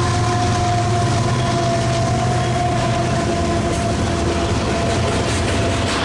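BNSF diesel freight locomotive passing close by: a loud low engine drone with a steady whine. It gives way after about four and a half seconds to the rumble of loaded double-stack well cars, with wheels clicking over the rail joints near the end.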